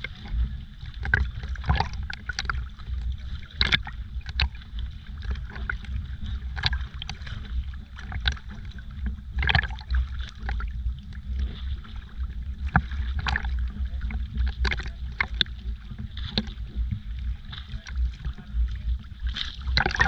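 Choppy sea water sloshing and slapping against a camera held at the surface, with irregular sharp splashes over a steady low rumble.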